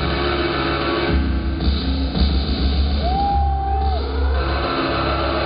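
Live trip-hop band performance: drums over a deep, sustained bass, with a single high tone that glides up, holds for about a second and slides back down about three seconds in.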